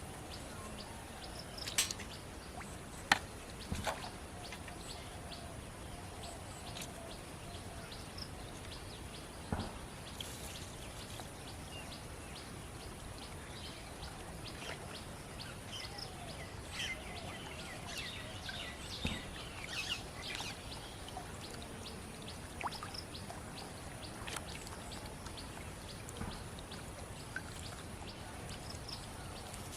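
Outdoor ambience: birds chirping now and then over a steady background hiss. A few sharp knocks come in the first few seconds, and the chirps bunch together just past halfway.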